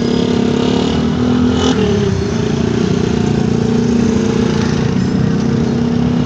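Freight train rolling slowly past: a loud, steady drone and rumble, with a brief dip in pitch about two seconds in.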